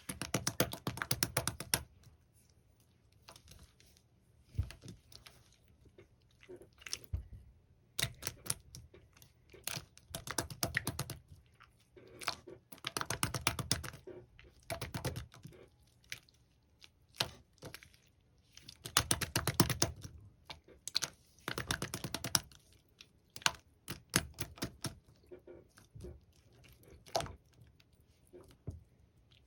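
Bubbly slime being squeezed and poked by hand, making rapid clicking and popping as trapped air bubbles burst. The clicks come in clusters of one to two seconds, with short quiet gaps between.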